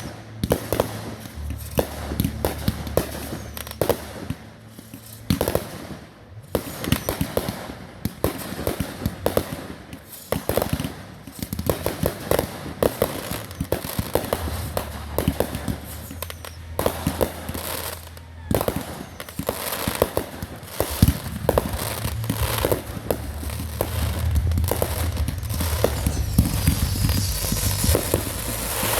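Fireworks going off in rapid succession: many sharp pops and bangs with crackling between them.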